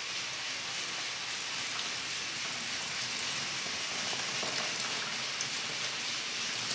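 Blended castor-plant leaf juice pouring from a blender jug through a plastic sieve onto caustic soda flakes in a plastic basin: a steady trickling splash.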